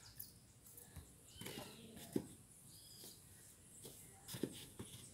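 Foam roller and body shifting on a tiled floor: a few soft knocks and rustles, the clearest about two seconds in and again near the end, with a couple of faint bird chirps behind.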